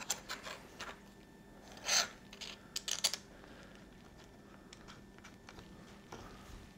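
Light clicks and rustling of packaging being worked off a bicycle's drop handlebars, with short louder rustles about two and three seconds in, then only faint handling noise.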